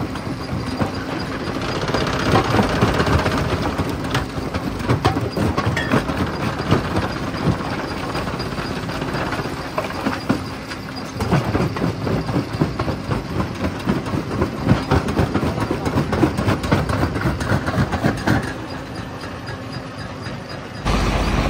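Rock crusher running, with stones clattering and knocking through it in a dense, irregular din. Near the end it changes abruptly to a steady low hum.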